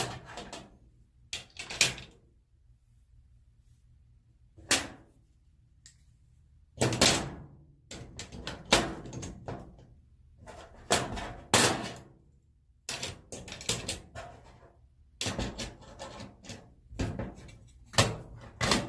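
Sockets and small hand tools clacking against each other and against a small metal toolbox as they are handled and packed into it: a few single sharp clacks at first, then busy clusters of knocks and rattles.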